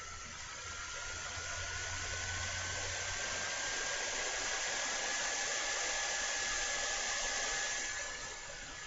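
A steady rushing noise, like a blower motor running, with a faint whine that slowly rises in pitch. It swells slightly, then eases off near the end.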